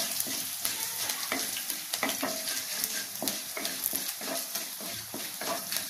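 Tempering of mustard seeds, cumin, lentils and crushed garlic frying in hot oil in a kadai, being stirred: a steady sizzling hiss with many irregular short crackles and clicks.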